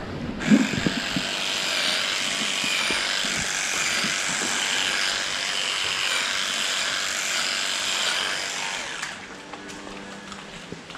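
Electric hair clippers running steadily while trimming the hair of a cow's tail switch. The buzz starts about half a second in and cuts off about nine seconds in.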